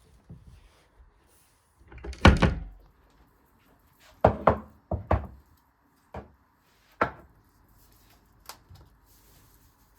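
A series of separate knocks and thuds of things being handled and set down, the loudest about two seconds in, then four quick knocks between about four and five and a half seconds and a few single ones after.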